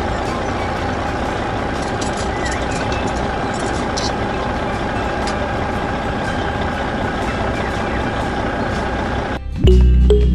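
Small motor of a DIY mini tractor model running steadily with a faint whine. It cuts off abruptly near the end and music with a heavy bass starts.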